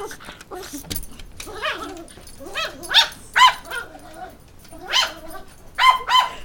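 Dog barking and yipping at a smoke alarm, a string of about eight short, high-pitched barks.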